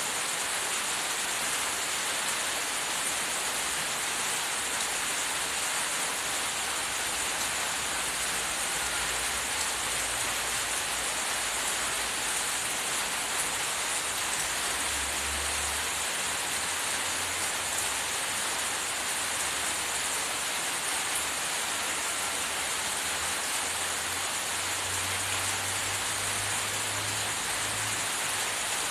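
A steady, even hiss at a constant level, with soft low bumps now and then.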